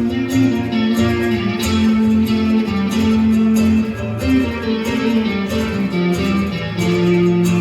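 Live band music in an instrumental passage between sung verses: a guitar-led melody over a steady beat, with no singing.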